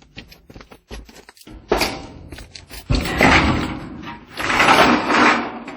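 Thin sheet-metal ridge cap being handled and moved into place: a run of clicks and knocks, with three longer rattling, scraping noises, the loudest near the end.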